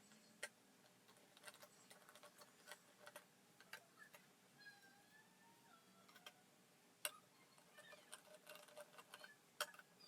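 Faint, irregular small clicks and taps of plastic Xbox Series S console parts being handled and fitted together, with three sharper clicks: about half a second in, around seven seconds in and near the end.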